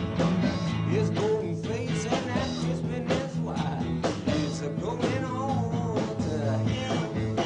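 Rock band playing, with drums keeping a steady beat over sustained bass notes and guitar.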